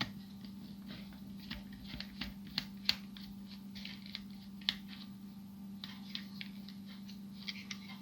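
Small clicks and taps of a screwdriver and hands working on a plastic toy while its small screws are undone, with the loudest clicks near a third of the way in and just past halfway. A faint steady low hum runs underneath.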